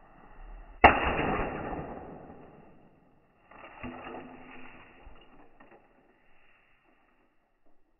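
A golf club strikes the plastic casing of an Acer CD drive: one sharp, loud crack about a second in, fading over the next couple of seconds. A quieter scuffling noise follows a few seconds later.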